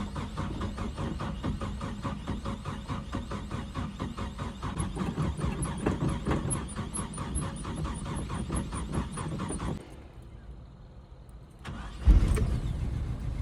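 1976 Toyota Chinook's 20R four-cylinder engine cranking on the starter, about five turns a second, for nearly ten seconds. After a short pause it fires and catches about twelve seconds in, then keeps running. This is a first start after two years sitting, on fresh fuel with a cleaned carburettor.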